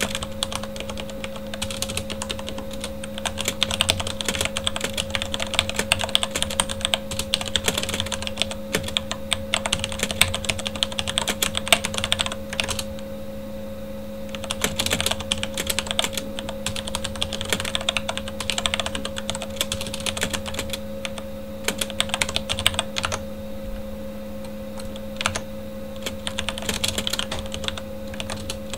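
Fast typing on a Corsair K70 mechanical keyboard with Cherry MX Red linear switches: dense runs of key clicks, with short pauses about halfway through and again near the end. A computer fan hums steadily underneath.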